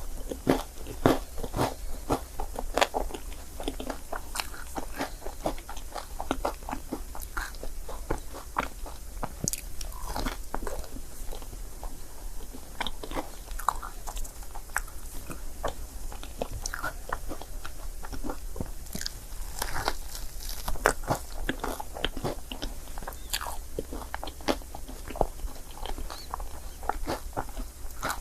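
Close-miked chewing and biting of a crepe: a dense, irregular run of short, wet mouth clicks and soft crunches.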